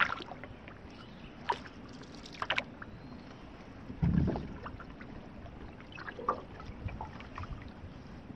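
Canoe paddle strokes in calm water: small splashes and drips from the paddle, with a few sharp ticks in the first few seconds and a louder low thud about four seconds in.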